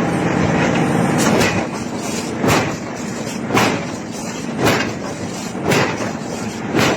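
Heavy hammer blows forging iron, striking about once a second from around two seconds in, each with a short ring. Before them, a steady rumbling noise of forge machinery.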